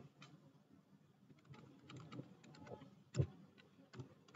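A few scattered, faint clicks of computer keys, the loudest about three seconds in.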